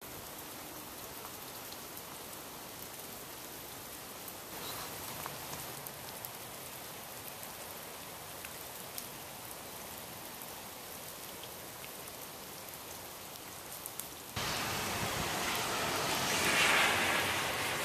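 Freezing rain falling: a steady hiss of drops with faint ticks, which turns suddenly louder about fourteen seconds in.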